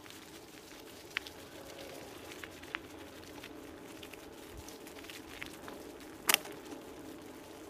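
Diggler Alpha dog scooter rolling fast over a leaf-strewn dirt trail: a steady rolling noise with scattered crackles and clicks, and one sharp clack about six seconds in.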